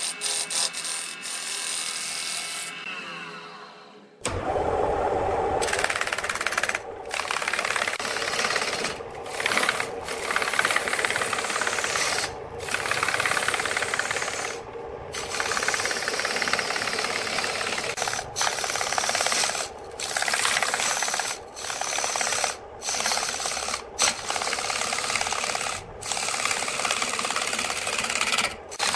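A gouge cutting into a large wood blank spinning on a lathe: a rough scraping hiss in repeated passes, broken by short gaps every second or two. It starts suddenly about four seconds in, after a whirring sound that falls in pitch and fades.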